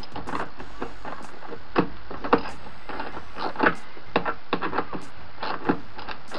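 Irregular clicks and metallic knocks of a ratchet wrench tightening the nuts and bolts that fasten a boat steering helm's mounting bracket.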